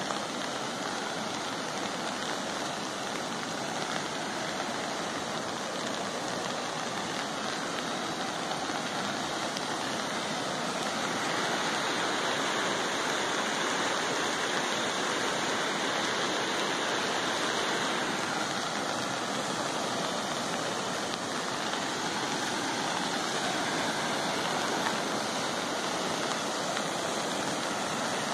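Steady rushing of water, a little louder from about eleven seconds in.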